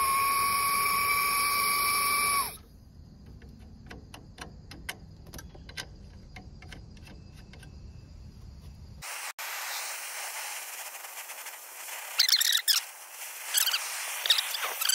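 A steady high whistle of purge gas rushing through a brass hose fitting for about two and a half seconds, then light clicks of the copper lines being handled. From about nine seconds in, a brazing torch flame hisses steadily on the copper joints, with sharp crackles and squeaks near the end.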